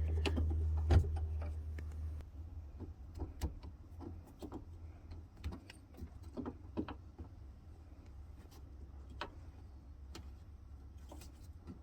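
Scattered small clicks and taps of a screwdriver turning out the retaining screw of a 1966 VW Beetle's ignition switch, metal on metal. A low steady hum stops about two seconds in.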